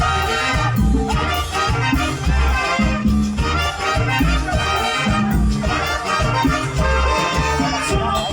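A live dance band playing Latin tropical music, with bass, brass and maracas.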